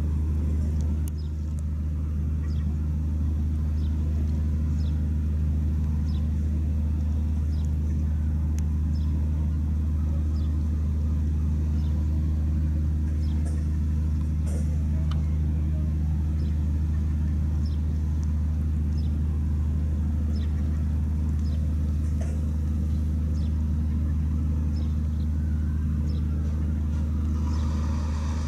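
Steady low diesel drone of a moored tanker's machinery, its generators running alongside the quay, a deep hum that holds an even pitch and level throughout.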